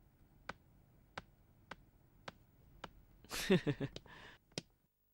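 Footsteps on a hard floor: six sharp, evenly spaced clicks at walking pace, then a short louder burst about three and a half seconds in and one last click before the sound cuts off abruptly.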